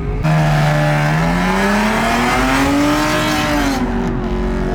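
A car engine revving hard during a burnout, with a loud hiss of spinning tyres. It cuts in suddenly, climbs steadily in pitch for about three seconds, then drops back.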